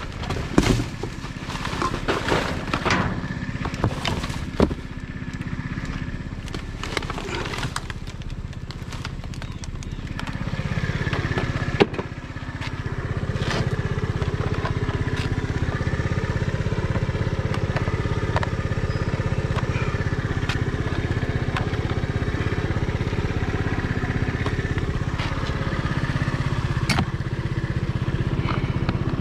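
Knocks and clatter of things being handled for about ten seconds, a sharp knock about twelve seconds in, then the steady low hum of a vehicle running.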